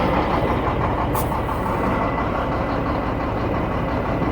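Shacman diesel tanker truck's engine running steadily in gear, driving a jacked-up rear wheel through the differential. The running noise is traced to the differential.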